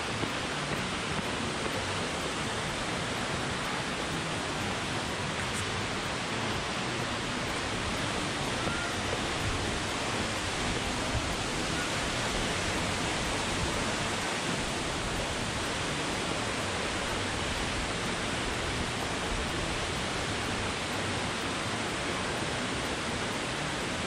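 Steady, even rush of falling water from Tad Yeuang waterfall.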